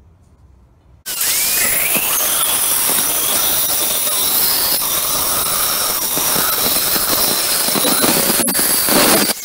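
Angle grinder with a continuous-rim disc starting up about a second in and cutting through a water-heater anode rod: a loud, steady grinding whine with high ringing tones that stops just before the end.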